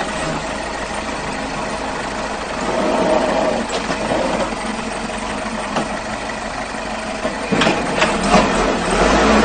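Construction machine engine running steadily, with a few sharp knocks near the end.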